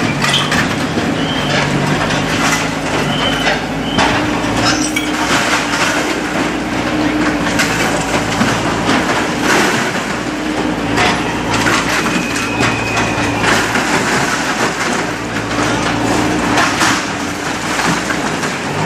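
JCB backhoe loader's diesel engine running under load while its bucket breaks up shop frontage. Repeated crashing and cracking of masonry and debris comes through over the steady engine.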